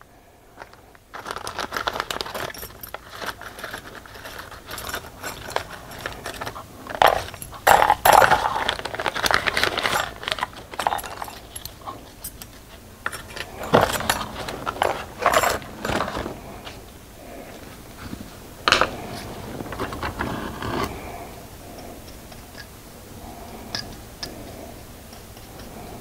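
Small metal brake pad hardware clips clinking, rattling and scraping as they are handled, taken out of their plastic bag and box, and pushed onto a rear caliper bracket. The clicks come irregularly and are busiest in the first two thirds, thinning out near the end.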